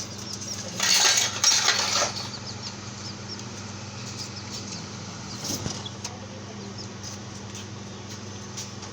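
Small birds chirping with short, high calls, broken about a second in by a loud rustling burst lasting just over a second, and a smaller one later.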